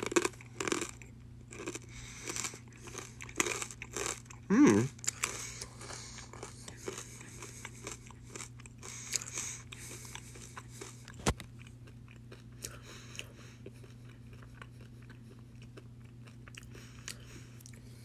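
Corn Nuts, roasted salted corn kernels, being bitten and chewed with loud crunches. The crunching thins out after about ten seconds. A brief voice sound sliding down in pitch comes about four and a half seconds in, over a steady low hum.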